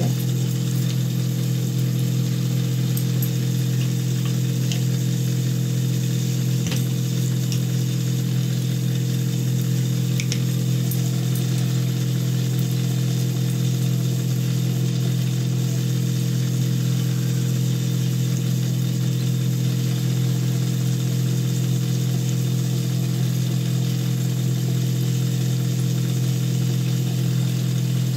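A steady, low mechanical hum from a running motor, unchanging throughout, with a brief click about seven seconds in.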